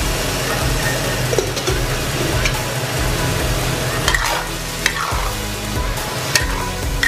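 Tofu skin, mushrooms and vegetables sizzling in sauce in a stainless steel wok while a metal spatula stirs and turns them, with a few sharp clinks of the spatula against the pan in the second half.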